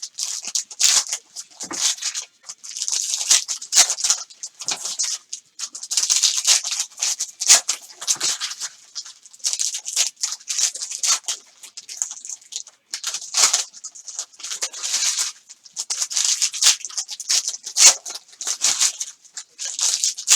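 Plastic packaging crinkling and rustling in irregular bursts as sealed trading-card boxes and packs are handled and opened.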